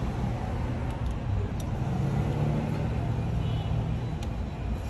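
Steady low rumble of motor vehicles, with a few light clicks.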